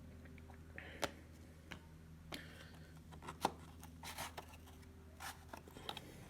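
Faint, scattered clicks and short rustles of trading cards being worked out of a tightly packed cardboard box by hand, over a steady low hum.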